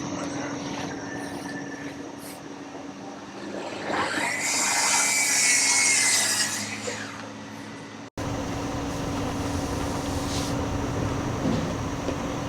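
A power saw whines up to speed about four seconds in and cuts for roughly three seconds, its pitch sagging slightly under load, over a steady low hum. The sound breaks off abruptly at an edit.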